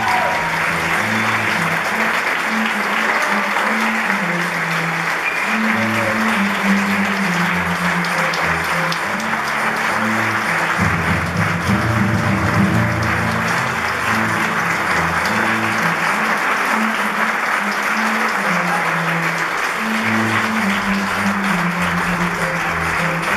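Theatre audience applauding continuously, a dense steady clapping over music with sustained low bass notes that change every second or so.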